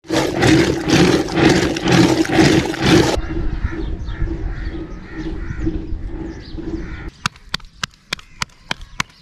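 Milk being churned by hand with a wooden churn stick in a clay pot: rhythmic splashing strokes about two a second. After about 3 s birds call faintly, and from about 7 s there are sharp slaps, about four a second, of roti dough being patted flat between the palms.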